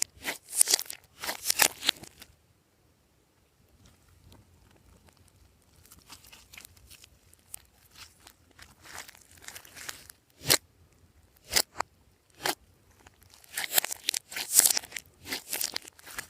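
Glossy slime worked by hand, giving sticky crackling and popping in bursts, with a quiet stretch about two seconds in, a few single sharp pops in the middle and a dense run of crackles near the end.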